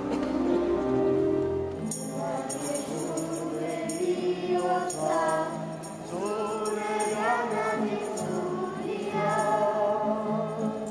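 Children's voices singing a hymn together in a church, with accompaniment. A steady held chord opens the passage, and the singing comes in about two seconds in, with light percussive jingling above it.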